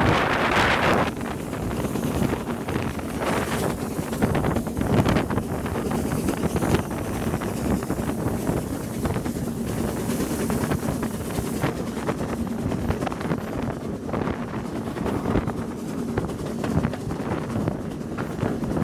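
Wind buffeting the microphone held out of the window of a moving steam-hauled train, over the train's rumbling running noise. It is louder for about the first second, then steadier.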